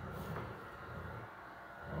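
Robot vacuum cleaner running, a low uneven motor hum with a faint steady whine above it.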